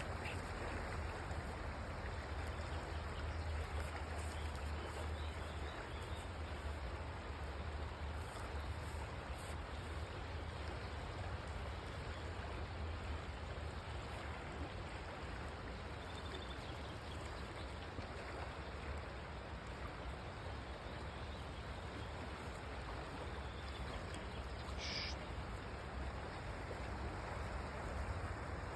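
Steady rushing noise of flowing water with a low rumble underneath, and one brief high squeak near the end.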